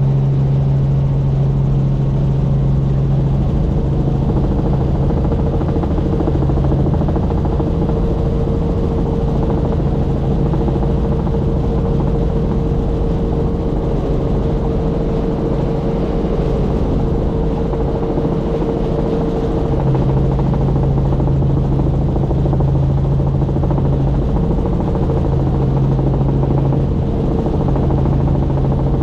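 Helicopter in flight: steady, loud engine and rotor noise with a low hum that weakens for a long stretch in the middle and comes back about two-thirds of the way through.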